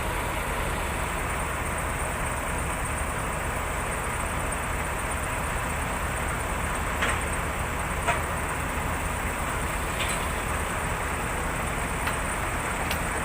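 Case 580 Super L backhoe's diesel engine running steadily, with a few sharp clicks or knocks.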